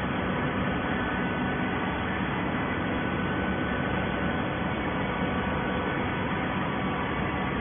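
Horizontal hydraulic baler's motor and pump running: a steady mechanical hum over an even rush of noise.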